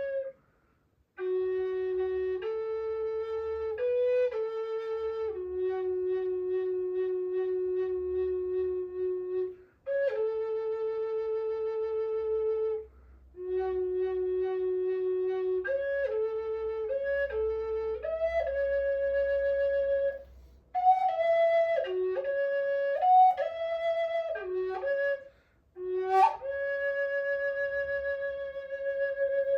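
Solo flute playing a slow, meditative melody of long held notes, each ending in a short pause for breath, with the pitch stepping up and down between notes.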